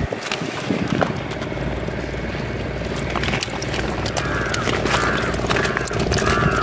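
Woven plastic sack rustling and crackling as it is handled open over live shrimp, over a steady engine hum. A few short chirps come in the second half.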